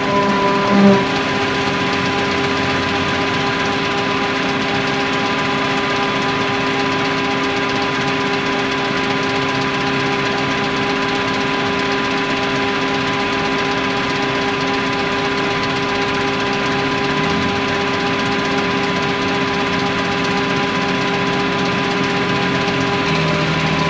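Multirotor drone's motors and propellers whining steadily, heard close up: several held tones over a hiss. Lower tones shift pitch a couple of times late on.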